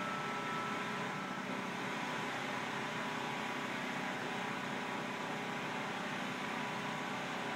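Steady mechanical drone of building machinery, an even whir with faint humming tones that does not rise or fall. It is the night-time noise the person filming blames on the neighbouring Brookfield Properties office complex. A faint high hum dies away about a second in.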